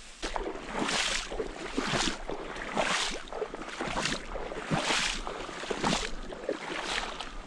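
Footsteps wading through shallow marsh water, a sloshing swish about once a second.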